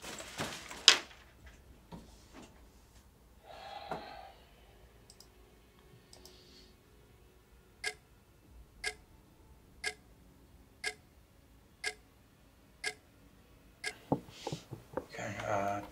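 A clock ticking, one tick a second, starting about halfway through and running to the end. Before it, a sharp knock about a second in and a few soft knocks and rustles; a burst of clatter near the end.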